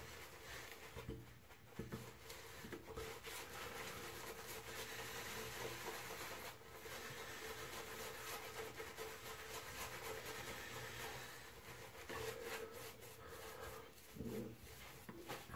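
Semogue two-band shaving brush swirled and scrubbed over a lathered face, building shaving soap lather: a faint, steady wet brushing.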